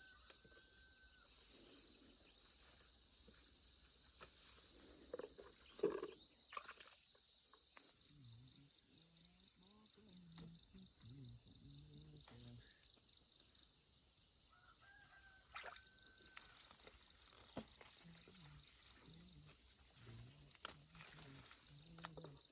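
Insects chirring in a steady high-pitched chorus that turns to a rapid pulsing about eight seconds in, with a few faint clicks and a sharper knock about six seconds in.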